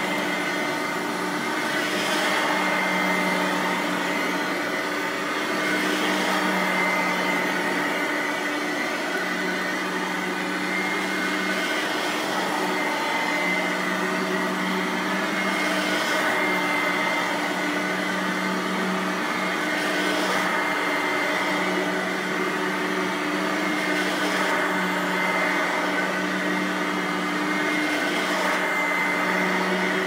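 Simplicity Freedom Sand Machine F3700 upright vacuum, with a 5.5 amp motor, running steadily while its stiff-bristled brush roll is pushed back and forth over carpet. The tone shifts slightly with each stroke, every two to three seconds.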